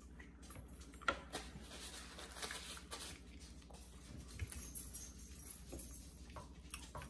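Quiet eating sounds: soft chewing and rustling with scattered light clicks, over a steady low room hum.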